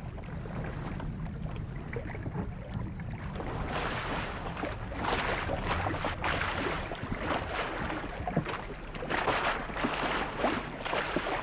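Fast tidal river water rushing and splashing against the side of a moored wooden fishing boat, over a steady low rumble. The splashing surges grow louder about a third of the way in and keep coming in waves.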